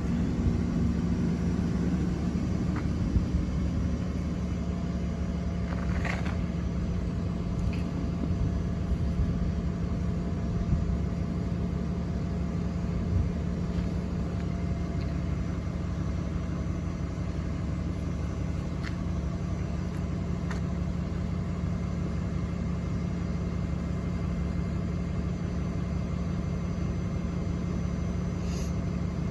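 Steady low rumble of an engine idling, with a constant hum and a few faint clicks.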